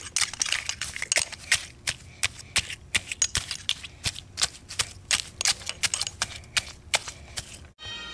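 Dry grass rustling close to the camera: a rapid, irregular run of sharp clicks and crackles that stops abruptly near the end.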